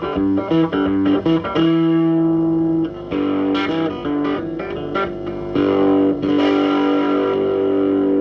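Electric guitar played through a Davoli D531T 10-watt push-pull valve amplifier: a run of quick picked notes, a long held note about two seconds in, then more picking and longer held notes near the end.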